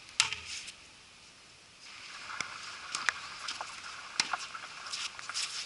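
Tennis racket striking the ball on a serve, a single sharp pop just after the start, followed by fainter pops and knocks of the rally as the ball is struck and bounces, about one a second, over a light hiss.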